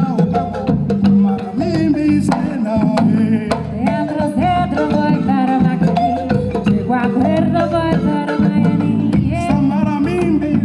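Live band music: congas and other hand drums, a balafon (wooden xylophone) and guitar, with a woman singing into a microphone.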